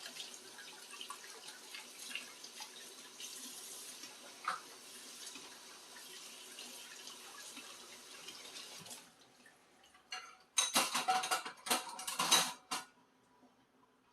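Kitchen tap running into a sink during washing up, with small clinks of dishes. The water stops about nine seconds in, and a couple of seconds of loud clattering of dishes follow.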